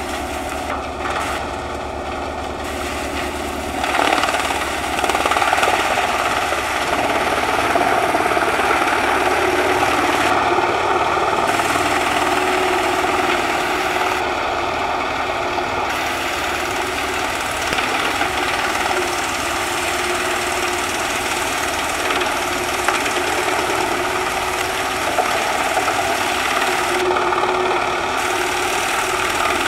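Scania R580 V8 truck and its mounted Pezzolato wood chipper running steadily while the crane feeds branches in to be chipped. It gets louder about four seconds in and then holds steady.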